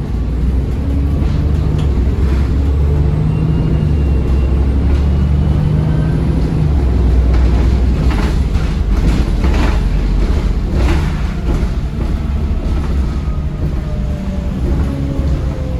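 Bus diesel engine running under way, heard from inside the bus, with a faint turbocharger whine gliding in pitch over the engine rumble. A cluster of body rattles and knocks comes about halfway through.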